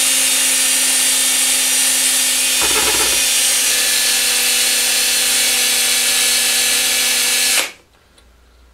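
Electric drill running steadily, its bit boring out the head of a stripped Allen hex screw so the head will come off the stud. There is a brief rougher patch about three seconds in, and the drill stops shortly before the end.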